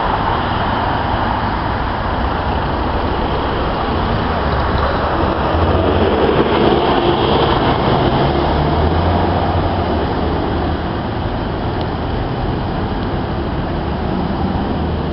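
City road traffic at a busy intersection: a steady wash of car engines and tyres, swelling about halfway through as vehicles come close and pull up in the near lane.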